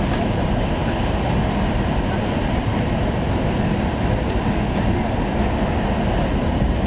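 Cabin noise of an E5 series Shinkansen running at high speed, heard from inside the passenger car: a steady low rush with no change.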